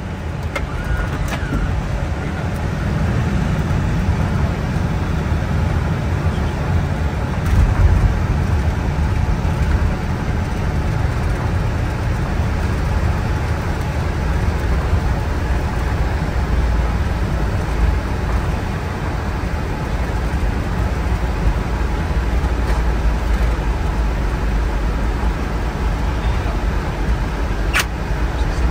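Boeing 747-400 landing rollout heard from inside the cockpit: a loud low rumble of engines and wheels on the runway, swelling over the first several seconds and then holding steady as the jet slows. A single sharp click near the end.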